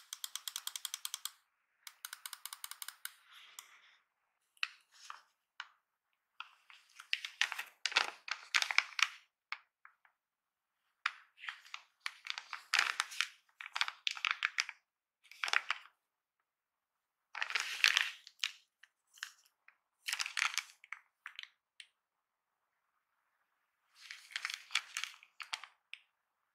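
Rapid clicking of an ASUS TUF gaming mouse's buttons in two quick runs, then the crinkle and rustle of small clear plastic bags being handled and opened, one holding a few screws.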